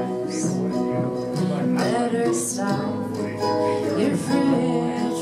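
Live acoustic string-band music: strummed and picked acoustic guitar over upright bass, playing steadily.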